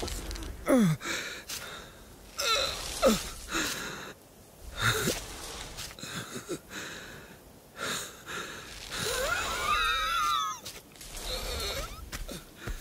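An animated sheep character's wordless vocal sounds: wheezy breaths and short gliding grunts, with a longer wavering cry about ten seconds in.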